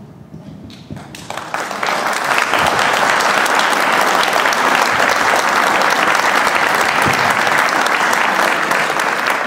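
Audience applauding: the clapping starts about a second in, swells quickly, and then holds steady.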